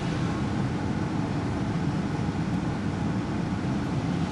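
Steady engine and tyre noise of a car driving on a town road, heard from inside the cabin.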